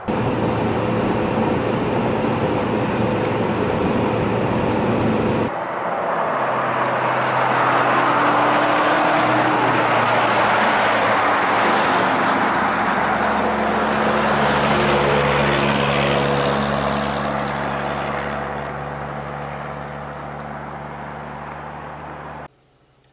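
Car driving on the highway, heard from inside: a steady rush of tyre and road noise over the engine's hum. The sound changes abruptly about five seconds in, the engine's pitch shifts a little a few seconds later, and it cuts off just before the end.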